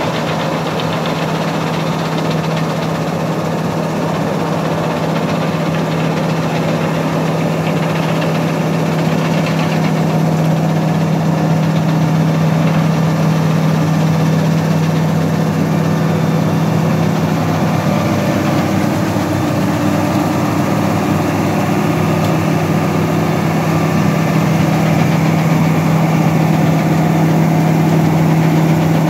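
New Holland Braud 9090X olive harvester running as it harvests along the tree row: a steady diesel engine drone with the machinery's rattle on top, growing slightly louder toward the end.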